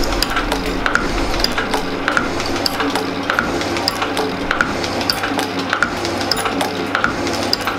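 Metal shaping machine cutting a 431 stainless steel bar, with a short click at each ram stroke about every 1.2 seconds. Background music plays over it.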